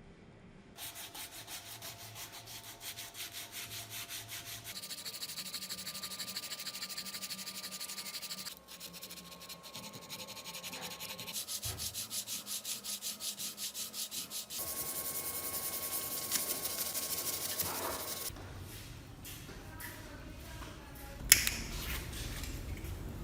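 Hand sanding: abrasive rubbed back and forth in quick, even strokes, about two to three a second, in several spells with short breaks between them. Near the end there is one sharp knock.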